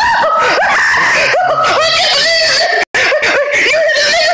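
A high-pitched voice screaming and shouting in long wavering cries, with a short dropout to silence about three seconds in.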